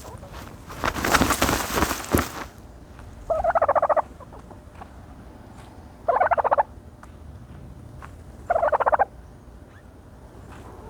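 A turkey dust-bathing: a loud rustling burst of dirt and feathers about a second in, then three short buzzy, rattling calls spaced a couple of seconds apart.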